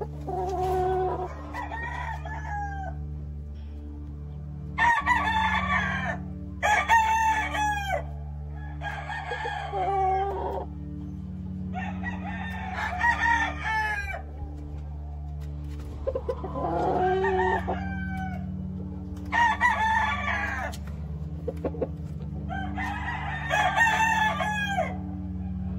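American game roosters crowing over and over, a fresh crow every two to three seconds, with a steady low hum underneath.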